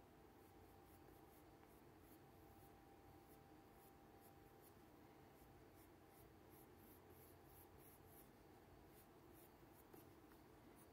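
Faint scratching of a pencil on paper: short, quick shading strokes repeated a few times a second.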